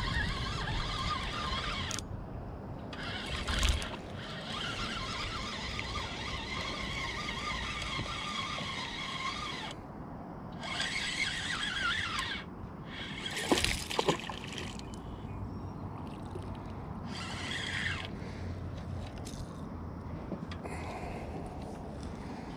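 Spinning reel being cranked in spells of several seconds with short pauses between them, and a few sharp clicks or splashes about two thirds of the way in, over light water lapping.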